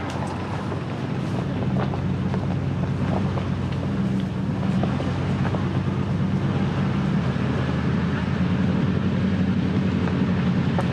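Vehicle driving on a dirt back road: a steady engine drone with tyre and road noise, slowly getting a little louder, and a few faint clicks and rattles.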